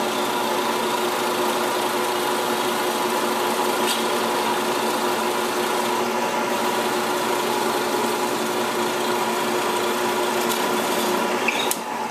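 Drill press running steadily with a constant hum as it bores a 1-inch centre hole through a glued eastern maple propeller blank, stopping near the end.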